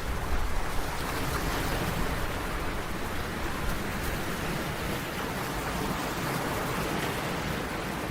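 Sea waves breaking and washing ashore: a continuous surf noise that swells slightly toward the middle and eases off again.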